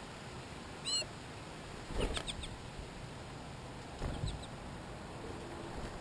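Songbirds at a seed feeder: one short arched chirp about a second in, then brief fluttering thumps around two seconds and again around four seconds in as birds take off and land.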